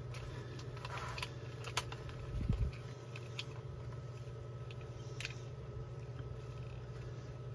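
Hands handling a plastic mount and starting its screw by hand on a nylon vest: scattered faint clicks and rustling, with a soft low thump about two and a half seconds in, over a steady low hum.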